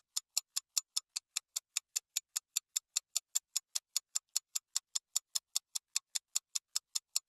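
Rapid, evenly spaced, high-pitched clock-like ticking, about five ticks a second. It is a ticking sound effect marking a fast-forwarded stretch.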